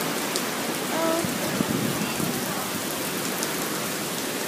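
Heavy rain pouring down steadily in an even, unbroken hiss.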